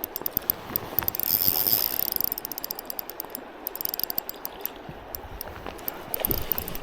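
Fishing reel clicking in quick runs as a hooked steelhead is fought in, with a pause in the middle, over the steady rush of stream water.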